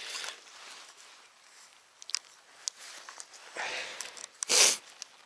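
A road bicycle rolling downhill: faint hiss with a few light clicks. About four and a half seconds in comes a short, loud rush of noise, the loudest moment.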